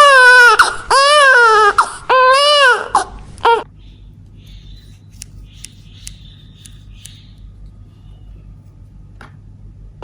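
A baby crying: about four loud, wavering wails in the first three and a half seconds, then stopping, leaving only a few faint clicks.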